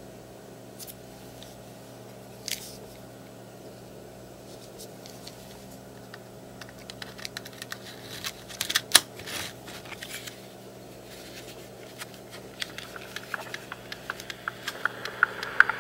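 Small plastic clicks and rattles of a Panasonic RN-305 microcassette recorder being handled as a microcassette goes into its tape compartment and the door is closed. The clicks are sparse at first and bunch up about halfway through, with the loudest single click about nine seconds in.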